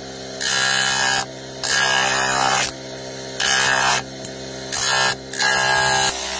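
Electric bench motor running with a steady hum while a horn spoon bowl is pressed against its spinning sanding disc. Five loud grinding strokes, each about half a second to a second long.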